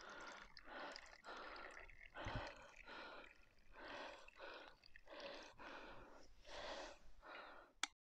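Hot drink glugging faintly as it is poured from a stainless steel vacuum flask into the flask's cup lid, about two gurgling pulses a second, cutting off just before the end.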